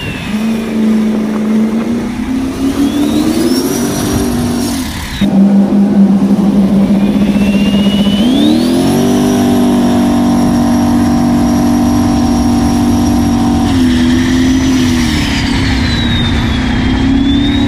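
Turbocharged jet boat engine running hard at speed, its pitch climbing in steps and holding high before easing back near the end. A high turbo whistle rises as the engine pulls and falls away as it eases, over a steady rush of wind and spray.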